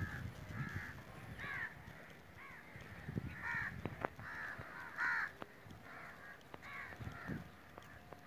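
Crows cawing over and over, about two short harsh calls a second, with a few soft low thuds in between.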